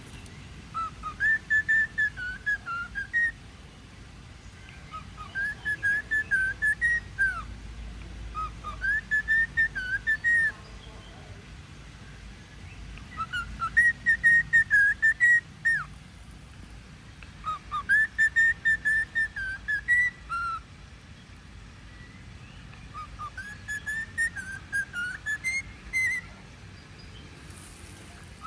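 Cockatiel whistling a learned tune: the same short warbling phrase six times, each a couple of seconds long, with short pauses between.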